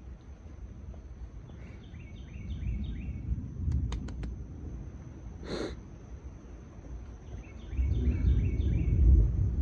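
Low rumble of thunder, swelling louder near the end. Twice a bird calls a quick run of short chirping notes over it.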